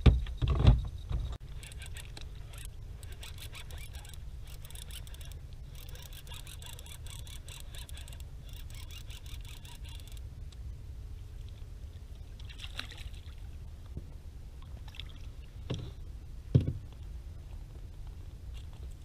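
Sit-on-top plastic kayak on the water: a couple of loud knocks against the hull at the start and two more near the end, with faint ticking and trickling between them over a steady low rumble.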